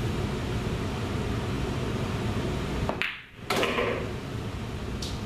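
A pool shot: the cue tip strikes the cue ball about three seconds in, with sharp clicks of the balls colliding and the sound cutting out for a moment between them, then fainter ball clicks near the end. A steady low room hum runs underneath.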